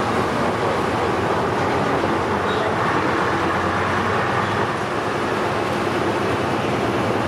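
Cabin noise aboard a 1948 White Motor model 798 bus under way: the engine runs steadily under a constant wash of road and running noise.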